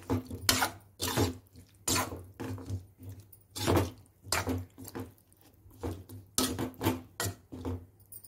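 Metal spoon stirring plantain pieces through a wet tomato masala in an aluminium kadai: repeated scraping strokes against the pan, about two a second.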